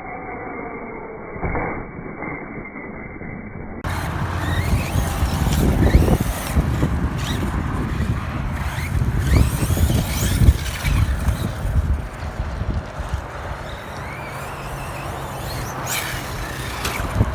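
Electric Arrma RC trucks driving on dirt. Their brushless motors whine up and down in pitch as they accelerate and let off, over a loud uneven rumble of tyres and knocks. The first few seconds are muffled and thin, and the sound opens up about four seconds in.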